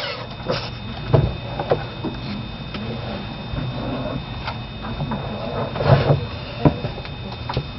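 Classroom room noise: scattered light knocks and clicks from moving about at desks, over a steady low hum.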